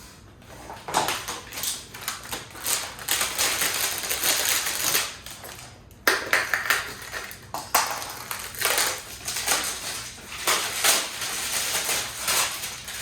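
Packaging being crumpled and handled: irregular crackling and rustling in dense bursts, with a sharp knock about six seconds in.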